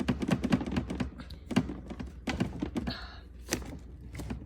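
Bottom drawer of a Whirlpool WRF757SDHZ02 refrigerator being worked, giving a run of irregular clicks and knocks, several a second, with a brief scrape about three seconds in, as it catches and sticks.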